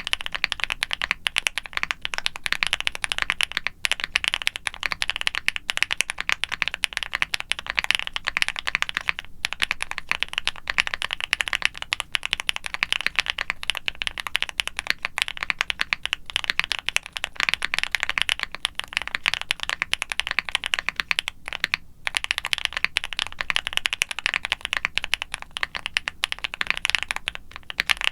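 Fast, continuous typing on a mechanical keyboard: a QwertyKeys QK65 aluminium board with a polycarbonate plate and full foam and silicone dampening, fitted with factory-lubed Gateron Smoothie linear switches and GMK ABS doubleshot keycaps. The keystrokes come in a dense stream with a few brief pauses.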